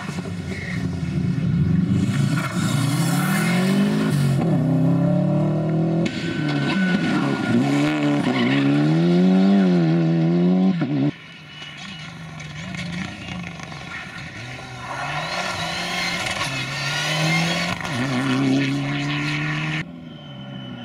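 Rally car engines revving hard through the gears as cars power through bends, the pitch climbing and dropping with each shift. The sound breaks off suddenly about eleven seconds in and again near the end, moving from one car to the next.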